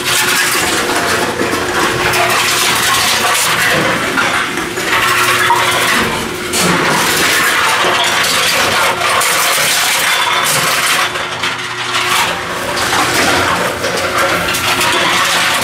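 Tomra T-53 reverse vending machine taking in aluminum cans one after another: steady motor hum with the repeated clattering and clinking of cans being carried through and dropped into its bin.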